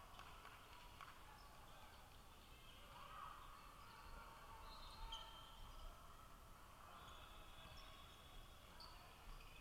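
Near silence: faint, indistinct background noise with a few faint short chirps.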